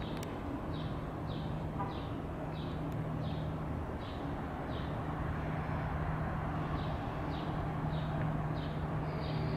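Outdoor garden ambience: a bird chirping short notes about twice a second over a steady low hum.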